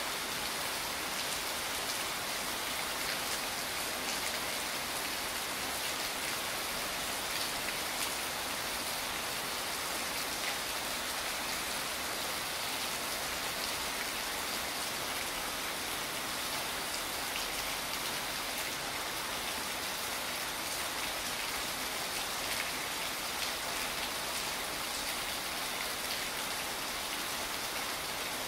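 Steady rain falling on wet stone paving: a continuous even hiss with scattered drop ticks.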